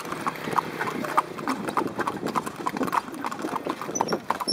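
Horse hooves clip-clopping briskly on a paved road, about five beats a second, as a horse pulls a cart with another horse cart close alongside.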